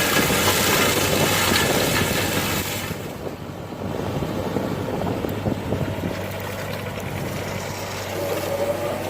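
Mini excavator's engine and hydraulic mulcher head running, with a steady low hum. A rushing, shredding noise drops away abruptly about three seconds in, and near the end a whine rises in pitch.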